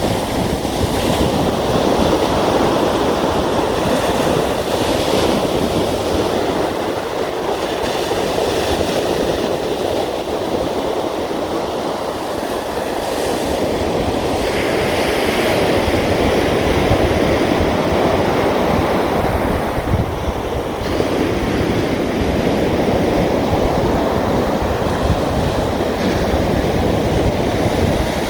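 Sea waves rushing onto a shore: a steady wash of surf that eases off a little and swells back up over several seconds.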